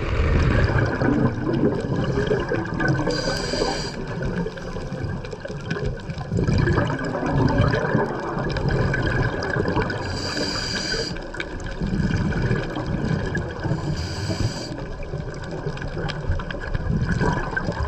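A scuba diver breathing through a regulator, heard underwater: three short hissing inhalations several seconds apart, with gurgling exhaled bubbles and a steady low rumble of water between them.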